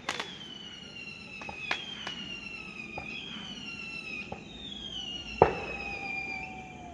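Fireworks whistling: several overlapping high whistles each slide slowly down in pitch over a few seconds. Scattered sharp cracks go off among them, the loudest bang about five and a half seconds in.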